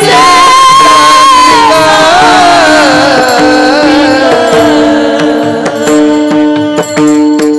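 Devotional abhang singing with mridang accompaniment. A voice holds a long note, then slides down through an ornamented line over a steady drone, with mridang strokes throughout.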